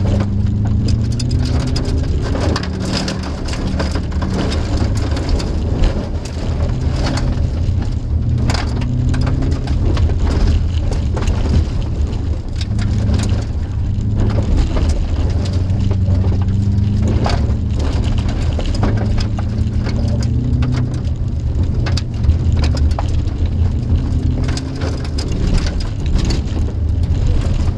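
Inside the cabin of a 2002 Subaru WRX driven hard on gravel: the turbocharged flat-four engine rising in pitch and dropping again over and over through the gears, under a continuous clatter of gravel spraying against the underside and wheel wells, with many sharp stone hits.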